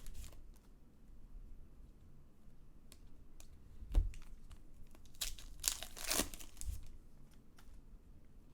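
Trading card pack wrappers crinkling and cards being handled, with scattered small clicks. There is a single thump about four seconds in, and bursts of rustling follow a second or two later.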